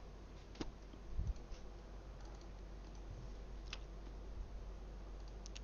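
A few faint, scattered clicks from someone working at a computer, over a low steady hum.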